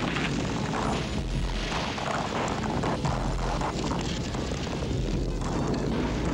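Animated film soundtrack: music mixed with a steady deep rumble and booming effects.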